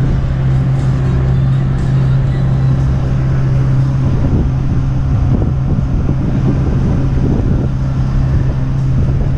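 Boat motor running steadily under way, a constant low drone with rushing noise over it.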